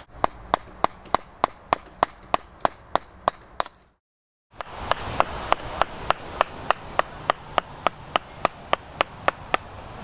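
Wooden mallet striking a steel carving chisel, cutting into the trunk of a standing tree: sharp, even knocks about three times a second, with a brief silent break just before the middle.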